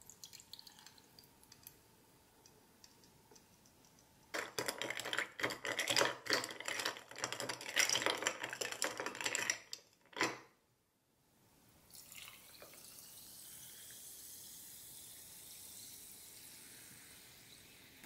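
A metal spoon stirring ice cubes, mint and lime in a tall glass: dense clinking and rattling for about five seconds. Then a steady soft fizzing hiss from carbonated soda in the mojito.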